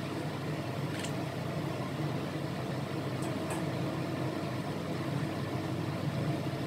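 Steady hum of a running kitchen appliance over a simmering soup pot, with a few faint light knocks as dried bean curd sticks go into the pot and are pushed down with chopsticks.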